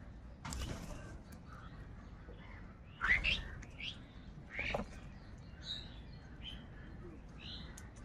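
House crows and pied starlings calling around a food bowl: two loud upsweeping calls about three and nearly five seconds in, with shorter high chirps scattered between. A brief rush of noise comes about half a second in.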